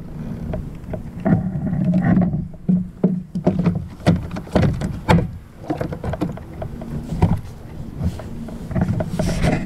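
A person climbing off a wooden dock into a plastic Hobie Revolution 13 kayak: irregular knocks, bumps and scuffs of the hull, fittings and waterproof clothing as he shifts his weight in.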